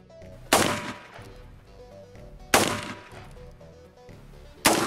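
Three single shots from an M4 carbine firing 5.56 mm SS109 rounds at a cinder block, about two seconds apart, each trailing off in an echo. Faint background music runs underneath.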